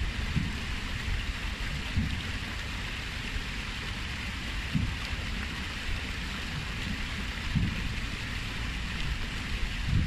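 Water spilling down a stepped stone cascade fountain into a pool: a steady splashing rush, with a low rumble and a few brief bumps underneath.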